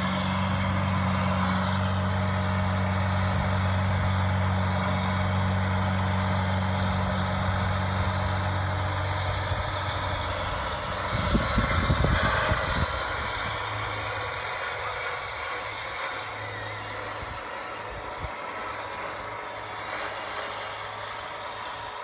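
Bobcat S100 skid-steer loader's diesel engine running steadily close by, then growing fainter as the machine drives off into the distance. A brief burst of rumbling noise comes about halfway through.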